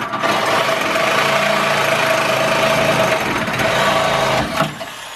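Reciprocating saw cutting through a rusty steel harness bar welded to the car body, running steadily and then stopping about four and a half seconds in.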